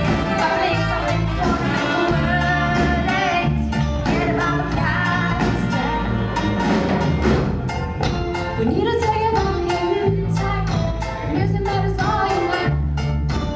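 Live reggae band playing: a female lead singer over drums, a bass guitar line and keyboards, heard through a club PA.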